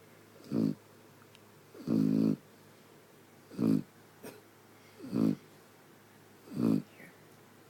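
A sleeping dog snoring: five short, pitched snores, about one every second and a half, the second one a little longer.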